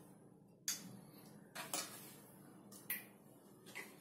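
A metal spoon clinking against the pan and a glass bowl while thick custard is spooned out, a few sharp taps about a second apart.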